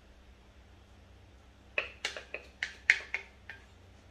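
A spatula tapping and scraping against a mixing bowl as cake batter is scraped out: a run of sharp, briefly ringing taps, several a second, starting a little under two seconds in.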